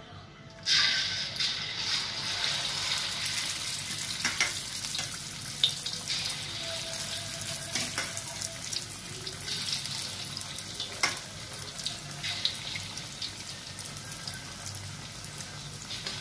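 Chicken pieces coated in cornflour and egg marinade deep-frying in hot oil in a steel wok. A loud sizzle starts suddenly about a second in as the chicken goes into the hot oil, then hisses steadily with scattered sharp pops and crackles.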